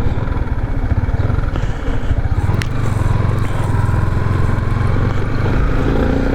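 Motorcycle engine running steadily at low revs while riding, with one sharp click about two and a half seconds in.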